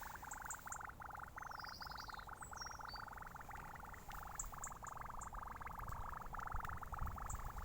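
A strange, continuous, rapid pulsing trill, steady and mid-pitched, whose source is not identified. A few short high chirps sound over it about one and a half to three seconds in.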